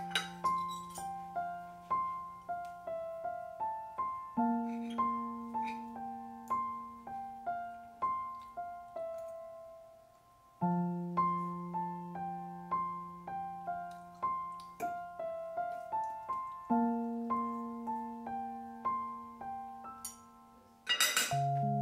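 Soft solo piano background music: a gentle melody of single decaying notes over held bass notes, the phrase starting over about halfway through.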